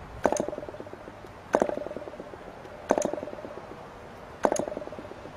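PAW 40 model diesel engine being hand-flicked four times. Each flick gives a sharp crack followed by a quick run of pops that fades out within about a second: the engine firing briefly on a primer charge without catching.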